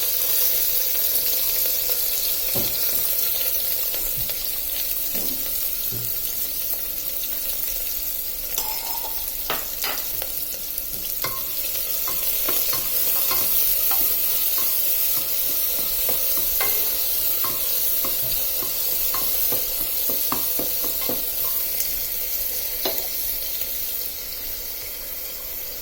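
Chopped onions sizzling in hot oil with whole spices in a pressure cooker pan, stirred with a spoon that clicks and scrapes against the metal now and then. The sizzle fades a little near the end.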